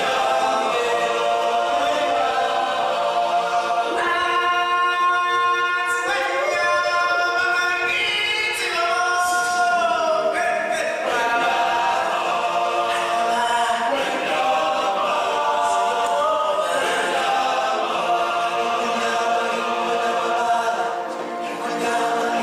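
A choir singing in harmony on long held notes, with the voices gliding up and down in pitch in the middle.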